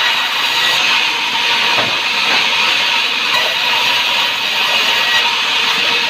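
Sawmill saw running, a loud steady rushing hiss with a faint high whine.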